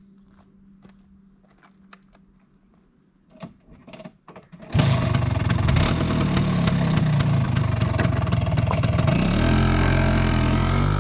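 Faint ticking, then a few short bursts, and a 1983 Vespa P200X's two-stroke single-cylinder engine starts about five seconds in and runs loudly. Its pitch rises near the end as the engine revs up.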